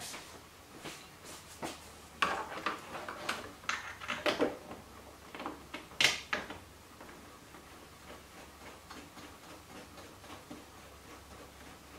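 Clicks and knocks of a Miata's behind-the-seat air deflector being fitted and its screws started by hand with a screwdriver, left loose for now. The handling comes in a cluster of short knocks, the sharpest about six seconds in, then settles to faint ticking.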